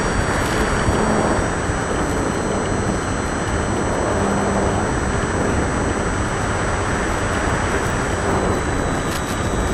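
HobbyZone Apprentice S 2 RC airplane in flight, its electric-motor propeller and the rushing airflow picked up by the onboard FPV camera's microphone. A steady, unbroken rush of noise with a faint, steady high whine above it.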